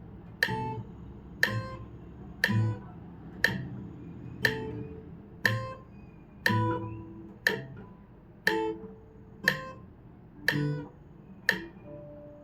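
Metronome ticking at 60 BPM, one click a second, with guitar notes plucked on each beat in a left-hand dexterity exercise. The notes fade out near the end while the clicks continue.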